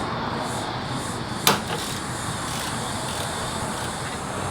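A hand tool gives one sharp metallic click on the car's engine mount bolts about a second and a half in, over a steady background hum.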